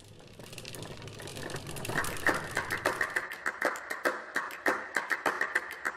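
A rapid, irregular run of clicks and ticks that fades in from near silence and grows steadily louder, over a faint low hum in the first couple of seconds.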